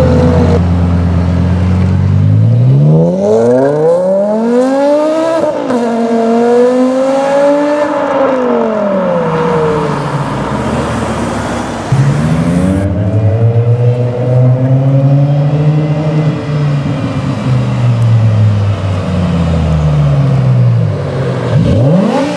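Hartge-tuned BMW M5 E60's V10 through a Botter aftermarket exhaust, revving and accelerating hard. The pitch climbs and drops several times in quick pulls, then makes one longer, slower rise and fall, with another sharp rev near the end.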